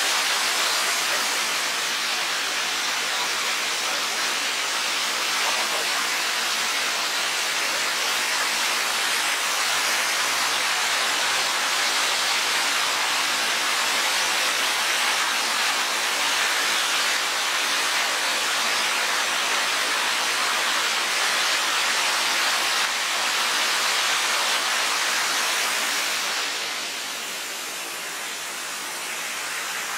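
Waterfall water rushing steadily down a rocky cascade. The rush falls a little quieter near the end.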